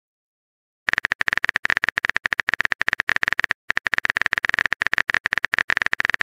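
Phone keyboard typing sound effect: a fast run of short clicks, about ten a second, starting about a second in, with a brief break in the middle.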